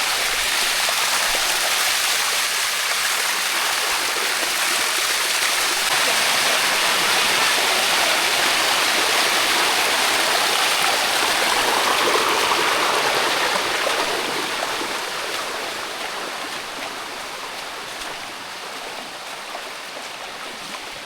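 Water of a cascading waterfall rushing steadily over rock. It grows somewhat quieter about two-thirds of the way through.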